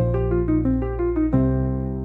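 Background piano music: a run of quick notes over a low bass, settling into a held chord about halfway through that fades away.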